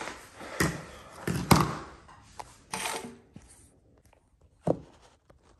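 Handling knocks and thuds as a phone is set down and propped up on a granite countertop, the loudest about a second and a half in, then a few softer clicks and one more sharp knock near the end.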